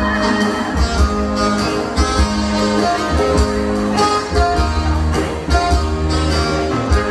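Live band playing an instrumental passage of a Thai luk thung song, with guitar over a steady bass beat.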